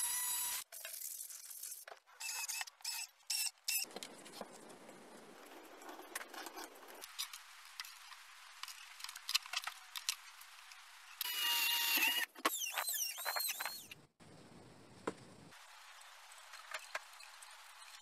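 Cordless angle grinder cutting plywood with a steady whine that cuts off about half a second in, followed by short chopped bursts of power-tool noise and, later, a tool whine sliding in pitch, between stretches of faint hiss.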